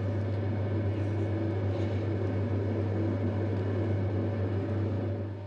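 Steady low hum of a running electric potter's wheel, with the soft wet rubbing of a rib held against the wall of a spinning clay pot.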